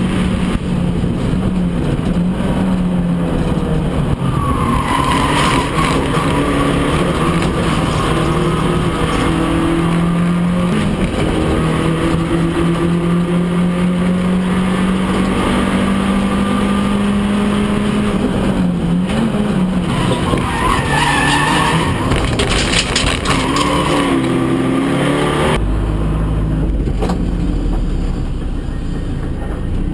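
In-cabin sound of an Abarth 500 Trofeo race car's turbocharged 1.4-litre four-cylinder engine at high revs, its steady note dipping briefly with gear changes. Tyres squeal twice, about five seconds in and again around twenty seconds, as the car slides through corners. Near the end the engine note gives way to a low rumble.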